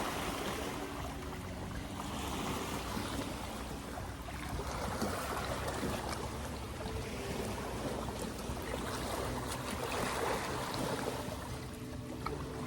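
Lake water lapping at the bank: a steady wash that swells and eases every few seconds.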